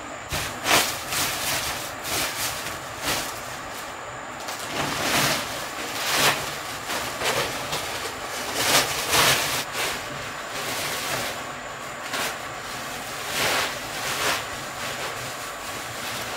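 A shovel scraping up loose wood shavings and sawdust and tipping them into a woven plastic sack, in uneven rustling, scraping strokes about every second, with the sack crackling as it is handled.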